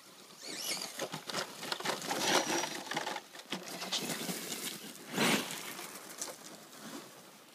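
Traxxas Rustler RC truck driving over gravel: a rapid crackle and clatter of tyres on loose stones, with a louder rush about five seconds in.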